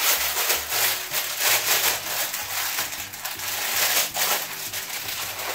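Repeated rubbing and rustling from a fidget toy being handled, in uneven strokes, over quiet background music with a low bass line.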